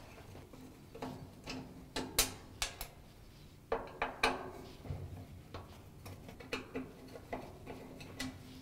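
Phillips screwdriver backing a screw out of a washer's sheet-metal top, with light, irregular metallic clicks and ticks.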